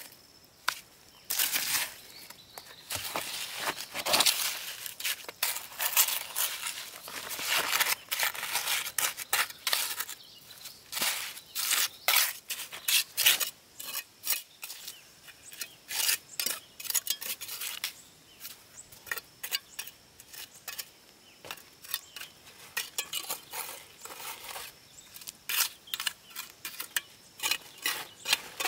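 Mason's trowel scraping, spreading and tapping wet sandy mortar onto a stone pillar: a long run of irregular scrapes and taps of metal on grit and stone.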